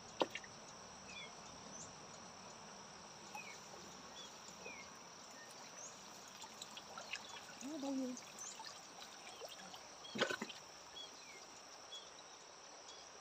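Water trickling and pouring off a bamboo-framed lift net as it is hauled up out of a river, over a steady high insect drone. Two sharp knocks stand out, one at the very start and one about ten seconds in.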